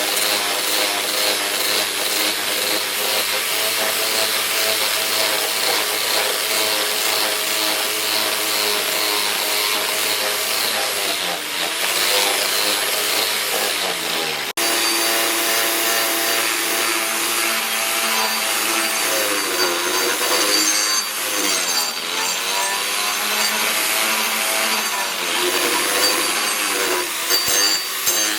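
Electric power tool working wood: a steady motor hum with a rasping cut, its pitch sagging and recovering each time the tool bears down under load. The sound breaks off and restarts abruptly about halfway through.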